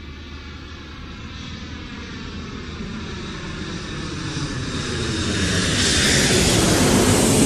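Airliner's engines on approach to land, growing steadily louder as the aircraft comes closer, with a high whine over the engine noise.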